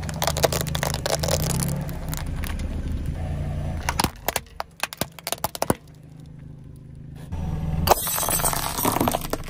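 Car tyre rolling slowly over objects on asphalt and crushing them: crackling and crunching, with a run of sharp cracks about four to six seconds in, over the steady low hum of the car's engine.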